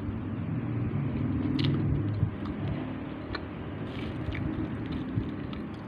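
A metal fork clicking and scraping a few times against a paper noodle cup and a siomai tray, with eating sounds, over a steady low rumble.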